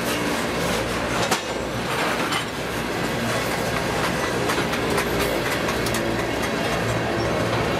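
Freight train cars rolling past: a steady rumble of steel wheels on rail, with repeated clicks as the wheels cross rail joints and one sharp click about a second in.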